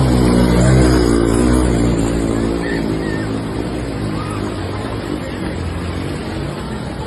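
A motor vehicle's engine running, its hum strongest in the first few seconds and then fading, over a steady rushing noise.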